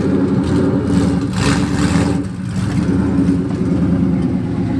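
2002 Ford Mustang GT's 4.6-litre V8 running loud and steady at idle. Its exhaust is open straight after the long-tube headers, with no mufflers or catalytic converters.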